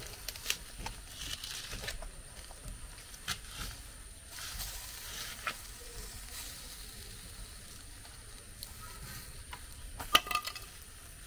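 Plantain and yam roasting, sizzling and crackling with scattered sharp pops over a steady hiss, and a quick cluster of louder pops about ten seconds in.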